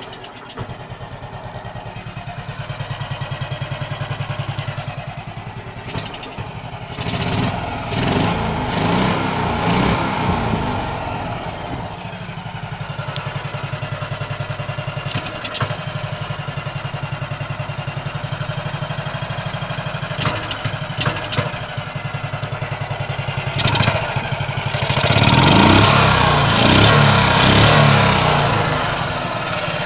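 1961 Heinkel Tourist scooter's single-cylinder four-stroke engine, fed by a new Keihin carburettor and running without its air filter, idling steadily. The throttle is opened twice, about a quarter of the way in and again near the end, so the revs rise and fall; the second rise is the loudest. The owner finds the idle all right but notes that the engine falters when the throttle is opened suddenly from a low idle, pointing to mixture or jetting adjustment.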